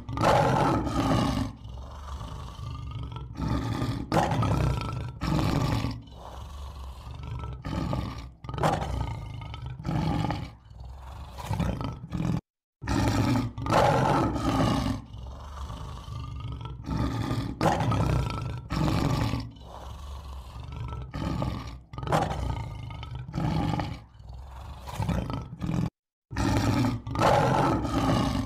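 Lion roaring over and over, a long series of deep roars one after another. The series breaks twice for a moment of dead silence where recordings are joined.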